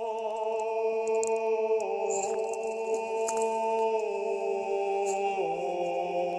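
Background music of long held tones: a low drone under a sustained chord that steps down in pitch about two seconds in and again near the end.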